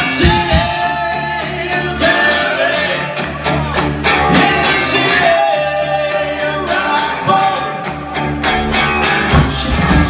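Live rock band playing: singers on microphones singing held notes over electric guitar and drums.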